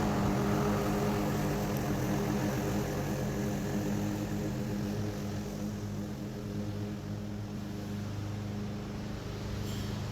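Masport Rotarola petrol rotary lawn mower engine running steadily at mowing speed, having just come up to speed.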